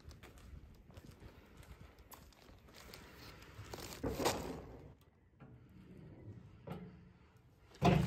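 Footsteps and clothing or bag rustle, with a louder clunk about four seconds in as a car door is opened and a heavy thud near the end as someone settles into the car.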